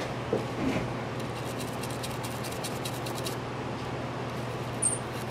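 Toothbrush bristles scrubbing alcohol-wet flux residue off a laptop logic board in rapid scratchy strokes. The scrubbing stops a little past halfway, and a short sharp tick comes near the end, over a steady low hum.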